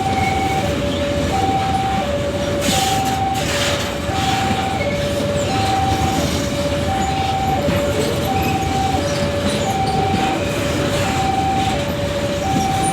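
Babaranjang coal train's wagons rumbling past steadily. Over it, a level-crossing alarm keeps sounding a two-tone warning that alternates high and low, about one cycle every second and a half. A brief hiss of noise comes about three seconds in.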